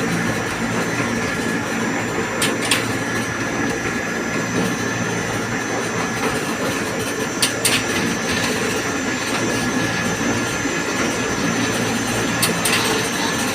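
Construction-site personnel hoist running, a steady mechanical drone with a hum, and a pair of sharp clacks about every five seconds.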